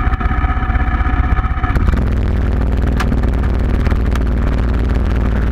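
Small engine running with a steady tone, then changing about two seconds in to a louder, rougher, low run as it is opened up. Two sharp clicks come over it.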